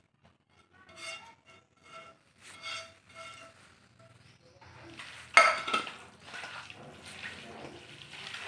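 Stainless steel mixing bowl knocked several times, each knock ringing briefly at the same pitch, then one loud clank about five seconds in. After it comes the wet squish of a hand mixing chicken pieces and potatoes in a thick marinade in the bowl.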